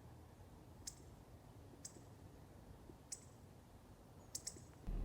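Five short, sharp clicks: single ones about a second apart, then a quick double click near the end.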